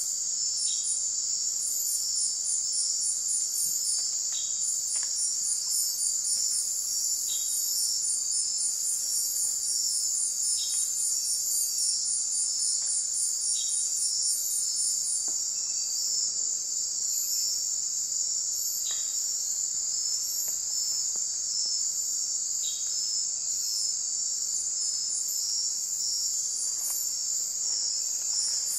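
Night insect chorus: a steady, high-pitched trilling of crickets, with a faster pulsing chirp above it that drops out about halfway through. A few faint ticks are scattered through it.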